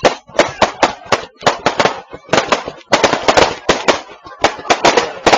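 Fireworks going off as a rapid, uneven run of sharp bangs, several a second, with brief pauses about two seconds in and about four seconds in.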